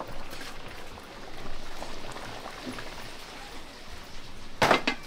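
Food cooking in a large pot over a fire: a steady hiss with faint crackles, then a sudden loud sound near the end.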